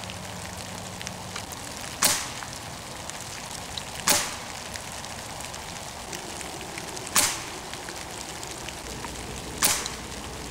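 Four sharp cracks from shots of a .22 calibre Hatsan Model 95 spring-piston air rifle, its pellets striking a paper target, spaced two to three seconds apart over a steady background hiss.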